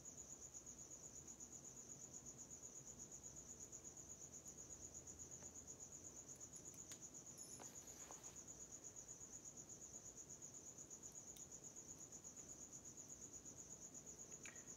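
Crickets chirping faintly in a fast, even pulse of high trills. A few faint clicks sound around the middle.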